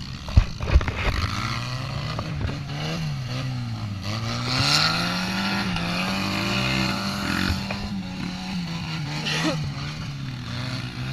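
Engine of a homemade cage buggy (gaiola) running, its pitch rising and falling as it revs up and down, with a few sharp knocks about half a second to a second in.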